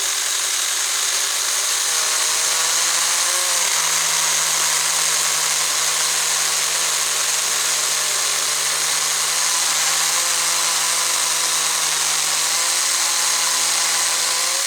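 Saker mini electric chainsaw running steadily while cutting through a red oak log: a constant motor whine with a dense high hiss of the chain in the wood.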